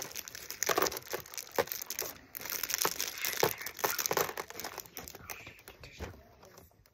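Thin clear plastic bag crinkling as small plastic building bricks are handled and shaken out of it, with light clicks of the pieces. The rustling thins out and gets quieter near the end.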